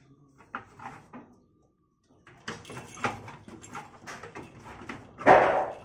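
Sheep moving about in a metal-barred pen with a wooden slatted floor: scattered knocks and rattles of hooves and bars, busier from about halfway through, and one loud sheep bleat about five seconds in.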